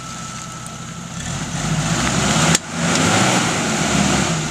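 Suzuki Vitara's engine revving hard under load as the 4x4 claws up a muddy slope, with one sharp crack about two and a half seconds in, typical of a drive joint (CV joint) snapping under the strain.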